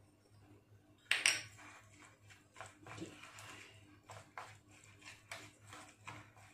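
A spoon scraping and clinking against a stainless steel bowl as a thick spice stuffing is stirred, in short irregular strokes, with one sharper clink about a second in.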